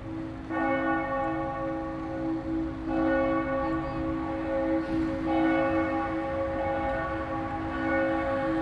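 Church bell tolling: three strikes about two and a half seconds apart, each ringing on into the next.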